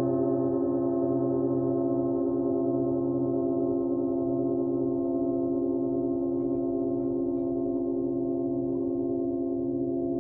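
Metal singing bowls ringing on after a strike: several steady tones sounding together, with a slow wavering beat, fading very slowly. A few faint light taps are heard partway through.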